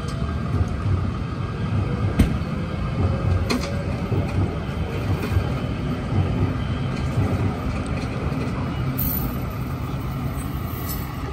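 Tow truck's engine idling with a steady low rumble, with two sharp knocks about two and three and a half seconds in and a brief hiss near the end.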